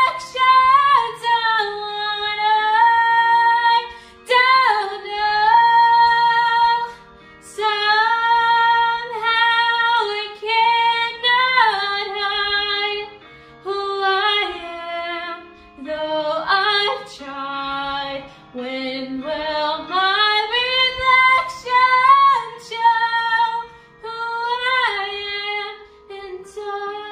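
A young woman singing a slow ballad solo, in phrases of long held notes with short breaths between them.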